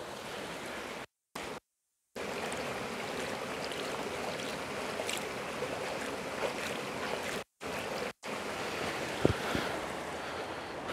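Shallow river water running steadily, heard close up while hands are washed in it. The sound cuts out completely twice for under a second, and there is a brief knock near the end.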